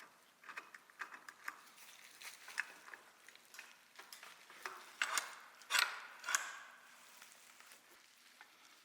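Light metal clicks and scrapes from working a roof-rack crossbar holder on its aluminium bar with an L-wrench, loosening its screws and sliding it along the bar. There are a few louder rattles about five to six and a half seconds in.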